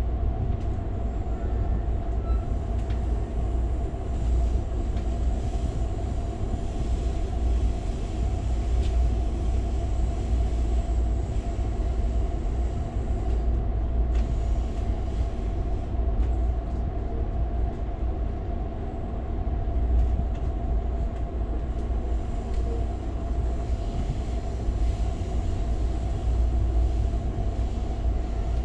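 Steady low rumble of an Amtrak California Zephyr passenger car rolling along the track, heard from inside the car, with a constant hum over it.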